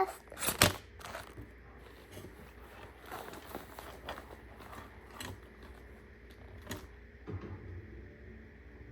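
Scattered light clicks and rustles of small items being handled, the sharpest click about half a second in, with faint crinkling after.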